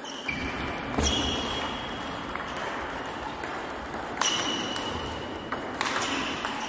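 Table tennis rally: a celluloid-type ball ticking sharply off the bats and the table, a hit about every second, each with a short echo of the hall.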